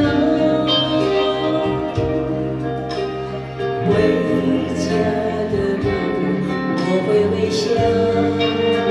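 A woman singing a song live over instrumental accompaniment.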